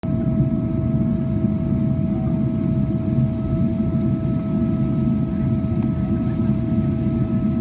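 Cabin noise inside a Boeing 777-300ER on approach with flaps extended: a steady rumble of airflow and its GE90 engines, with a thin steady whine over it.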